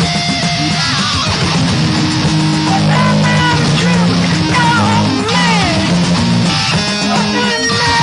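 Live band music with electric guitar: steady low notes underneath and guitar lines that bend and glide in pitch.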